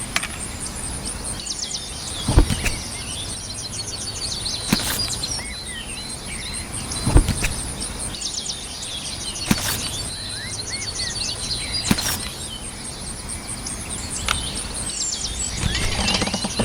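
Small birds chirping and twittering over a steady, high, pulsing insect-like buzz, with a sharp knock about every two and a half seconds.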